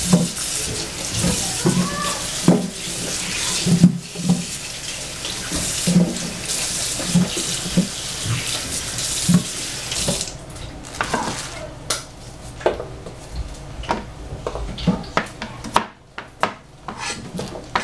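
Kitchen tap running into a sink, with scattered knocks, until the water stops about ten seconds in. Then a cleaver knocks sharply and irregularly on a plastic cutting board as squash is chopped.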